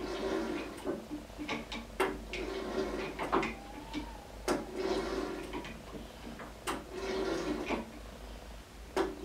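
Irregular metal knocks and clanks from a steel tool worked against the spindle and bearing adjusting collar of a Standard Modern 10-inch lathe headstock: about half a dozen sharp knocks a second or two apart, with scraping and rattling between them.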